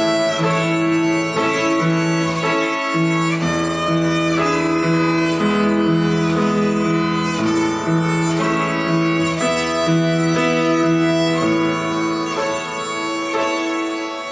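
Violin playing a simple melody of held bowed notes over an accompaniment, with a bass line coming in about three seconds in.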